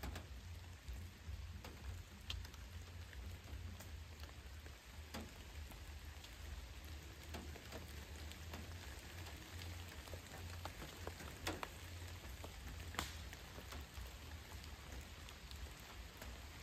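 Steady rain falling, an even hiss with scattered sharper drops ticking close by, over a low steady rumble.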